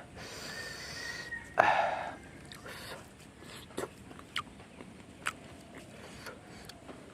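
Eating sounds: chewing and scattered small clicks and smacks of a meal being eaten by hand, with one short louder sound about a second and a half in.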